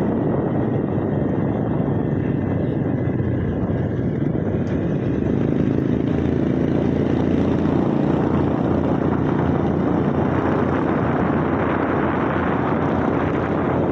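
Motorcycle engine running steadily under way, with a dense rushing noise from riding. The engine note grows a little stronger about five seconds in.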